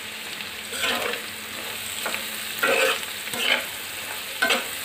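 Onions, green chillies and egg frying in oil in a pan with a steady sizzle. Spices are being stirred in, and the utensil scrapes the pan about four times.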